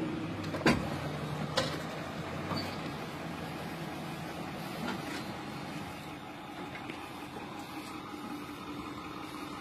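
A vehicle engine idling steadily, with two sharp clicks, the first under a second in and the second about a second after it.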